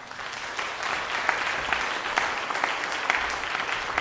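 A congregation applauding steadily in a large sanctuary, with many individual claps standing out.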